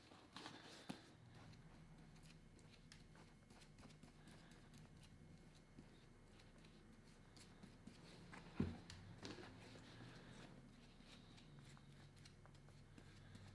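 Faint scattered taps and handling noises, with one sharper knock about eight and a half seconds in, over a low steady hum.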